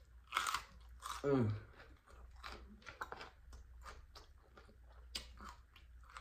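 A crunchy bite into a whole raw jalapeño pepper, then close-up chewing with many small wet mouth clicks.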